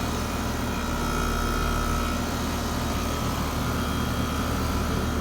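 A 5-ton heat pump outdoor unit with a Copeland scroll compressor running steadily in cooling mode: an even hum of the compressor and condenser fan. A faint high whine in it fades out about two seconds in.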